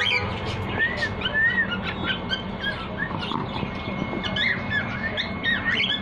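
Cockatiels whistling and chirping: a few arched whistled notes about a second in, then a busy run of short rising and falling chirps.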